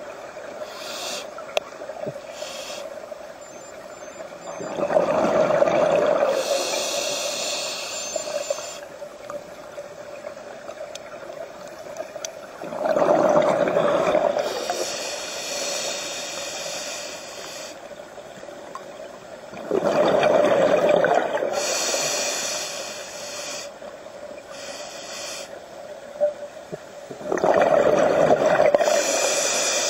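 Scuba diver breathing through a regulator underwater: four bubbling exhalations about seven seconds apart, with a fainter hiss between them.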